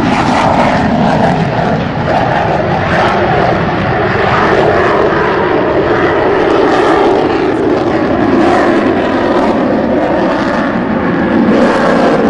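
Sukhoi Su-37 fighter's twin jet engines heard from the ground as it manoeuvres overhead: a loud, continuous jet noise with a pitch that drifts slowly up and down.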